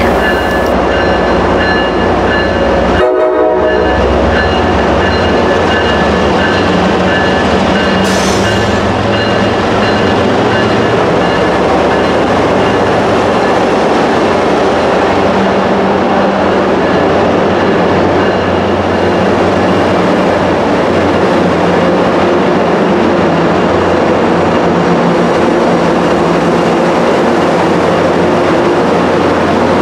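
MBTA HSP46 diesel locomotive and its bi-level commuter coaches moving past slowly, with steady loud engine rumble and rolling-stock noise.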